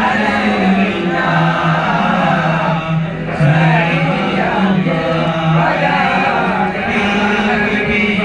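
A group of boys' and young men's voices chanting a devotional song together in unison.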